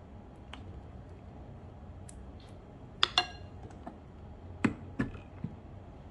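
Rice cooker being handled and closed for cooking: two sharp, briefly ringing clinks about three seconds in, then two duller knocks a moment later and a fainter one after them.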